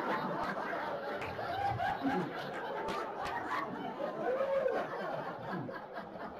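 Audience laughing at a stand-up punchline: many overlapping laughs and chuckles from a small crowd in a comedy club room.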